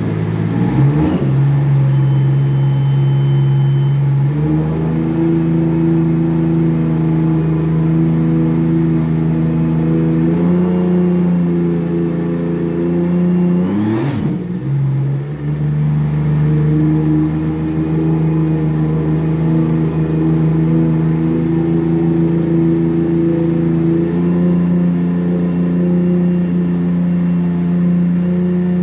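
Supercharged three-cylinder Rotax 1630 engine of a 2017 Sea-Doo RXT-X 300 with an aftermarket thru-hull exhaust, running hard on the throttle while tied up in water. The revs climb right at the start and hold high, dip briefly about halfway and climb back.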